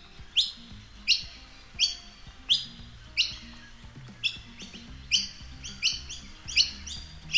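Noisy miner giving its contact call: persistent chirping, a string of short, sharp high notes about one to two a second, coming faster in the second half.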